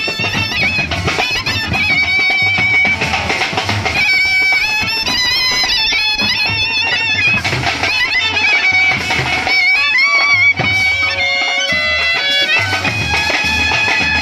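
Music: a wavering, reedy wind-instrument melody over a steady drum beat.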